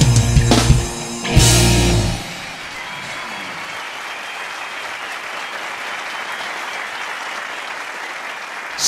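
A live band plays the song's final notes and ends on a loud closing hit about two seconds in. An audience then applauds steadily.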